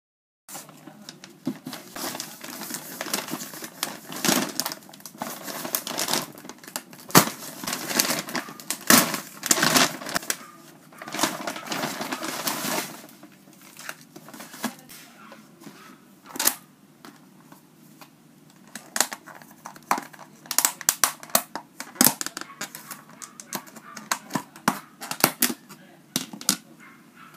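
Brown paper delivery bag crinkling and rustling as it is opened and handled, dense through the first half, then sparser crackles and clicks as a plastic food container is taken out.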